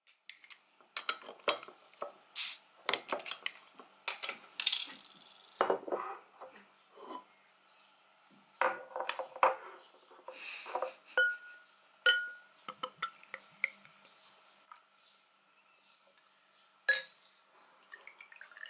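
Glassware and tableware clinking and knocking on a table: a pint glass being handled and set down, in a long run of short, sharp clinks and taps.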